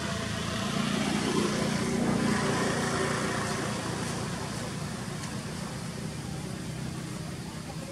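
Motor traffic passing on a nearby road, a vehicle's engine and tyre noise swelling about a second in and slowly fading over the next few seconds.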